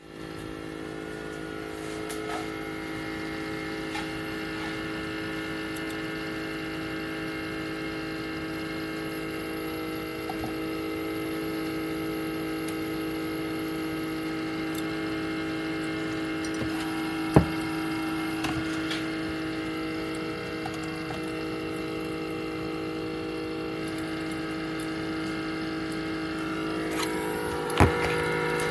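Keurig K-Mini single-serve coffee maker running with a steady electric hum, broken by two sharp clicks, one about two-thirds of the way through and one near the end.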